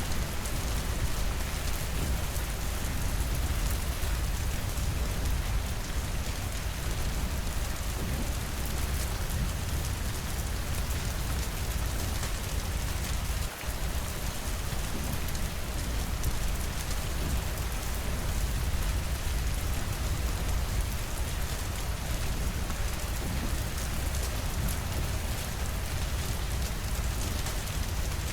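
Steady rainfall with a low rumble and dense fine patter of drops, briefly dipping in level about halfway through.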